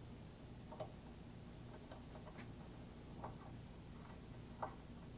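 Faint, sharp metal clicks and ticks, about five spread irregularly, as metal tool-rack towers are turned by hand into M6 nuts in a CNC machine's T-slot table, over a low steady hum.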